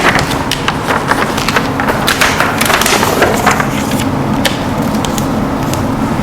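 Irregular light knocks and clicks of objects being handled against wood, over a steady low hum.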